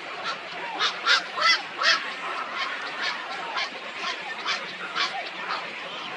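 Waterfowl calling: a quick run of four loud, short calls about a second in, then further calls roughly every half second, over a background chorus of many small bird calls.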